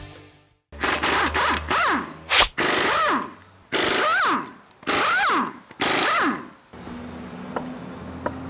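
Impact wrench zipping off a pickup's front-wheel lug nuts: a run of about six short loud bursts, each rising and falling in pitch as the wrench spins up and lets off. The bursts stop about two-thirds of the way in, leaving a steady shop hum and a couple of small clicks as the wheel comes free.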